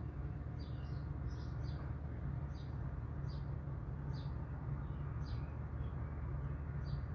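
A bird chirping in short high notes, roughly once a second, over the steady low hum of a large wood chipper's engine running.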